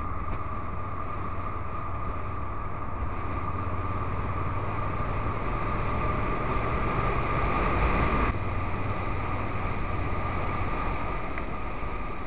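Honda NC750X DCT motorcycle's parallel-twin engine running as the bike accelerates from about 46 to 67 km/h, mixed with wind and road noise, growing louder. About eight seconds in the sound cuts off suddenly and resumes more quietly at a lower speed.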